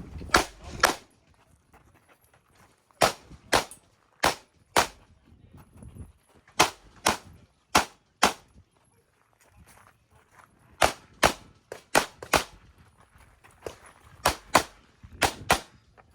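Pistol shots fired through a timed match stage: about eighteen shots, mostly in quick pairs about half a second apart, with gaps of a second or two between pairs as the shooter moves between targets.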